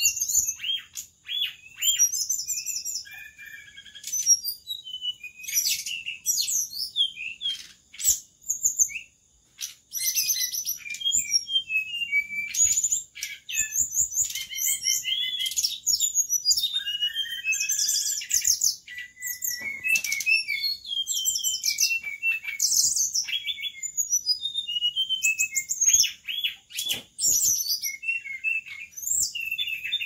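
Caged SRDC (sri rejeki dada coklat) songbird singing a long, rapid run of chirps, trills and short whistled phrases with only brief pauses, over a steady high-pitched tone.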